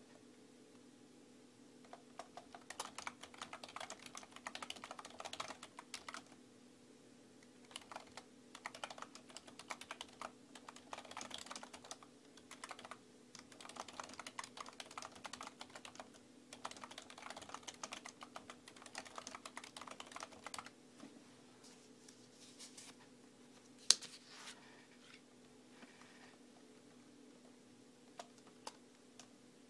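Typing on a computer keyboard: runs of fast key clicks with short pauses between them, thinning in the last third to a few single key presses, one of them much sharper and louder than the rest. A faint steady hum runs underneath.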